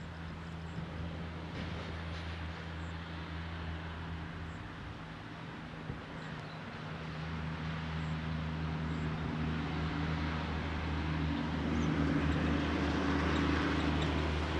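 WDM-3A diesel-electric locomotive's ALCo V16 engine working under load as it accelerates a passenger train: a steady low drone that grows louder over the second half.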